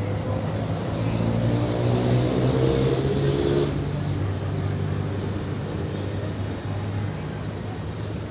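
A motor engine hums steadily, its pitch rising a little and loudest in the first three and a half seconds before it eases to a steadier, slightly quieter drone.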